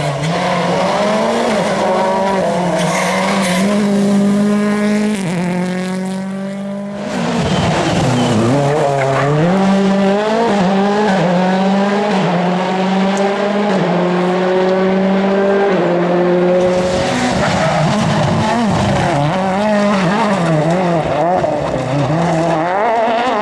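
World Rally Car engines, 1.6-litre turbocharged four-cylinders, driven hard on a special stage: the engine note climbs and drops back again and again with gear changes and lifts. About seven seconds in, the sound briefly fades and dips, then a fresh run of hard revving begins.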